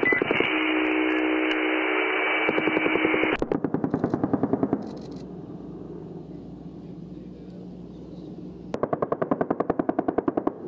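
AH-64 Apache's 30 mm M230 chain gun firing long rapid bursts, about ten rounds a second. The first burst runs on until about five seconds in, and another comes near the end. A steady hiss with a hum over it sits under the first burst for about three seconds.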